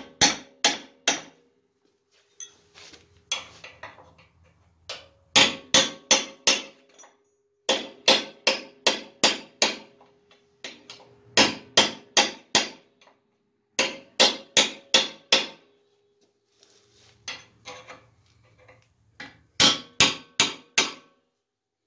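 Hammer blows on a chisel driven against the steel shell of a worn upper trailing arm bushing in a rear axle's ear, caving the shell in to get the old bushing out. The strikes come in quick bursts of four to six, every couple of seconds.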